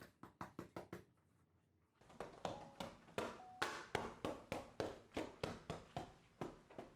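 Quick, regular light taps on floor mats being laid, about three to four a second, with a pause of about a second near the start.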